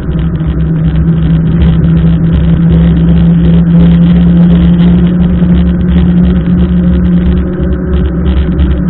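Loud, continuous muffled rumble with a steady low hum: wind and wet-road riding noise picked up by a mountain bike's camera riding in the rain. The hum fades about seven seconds in.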